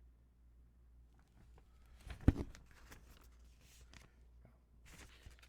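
Paper and cardboard rustling as a model kit box and its contents are handled, with one sharp thump a little over two seconds in.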